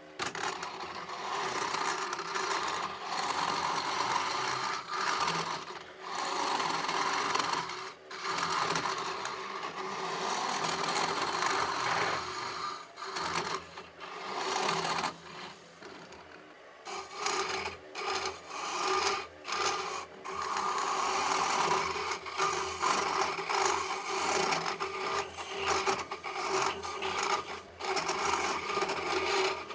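Hollowing tool cutting inside a spinning red oak vessel on a wood lathe: a steady scraping hiss, broken by short pauses as the tool is worked in and out, choppier in the second half, over a steady hum.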